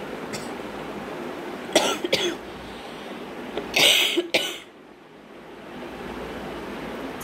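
Coughing: two short coughs, then a louder, longer cough a couple of seconds later, over a steady background hiss.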